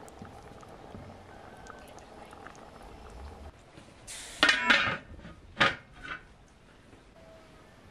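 Sauce simmering softly in a cast iron pot, then a metal lid set down on the pot: a clattering scrape about four seconds in, a sharp clank a second later and a lighter knock just after.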